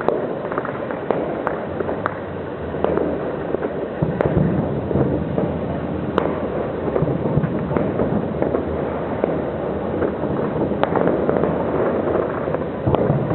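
Fireworks going off in a dense, continuous barrage: a steady din of booms with many sharp cracks and pops throughout.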